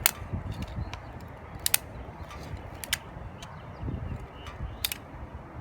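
Toy packaging being handled, giving a few sharp clicks and taps over low handling rumble.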